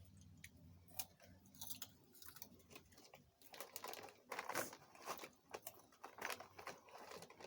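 Faint, scattered clicks and short crackly rustles of snacks being eaten and handled, busiest in the second half.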